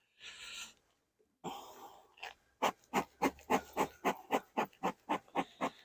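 A dog panting rapidly, short quick breaths about four to five a second, starting about two and a half seconds in after a couple of brief rustling hisses.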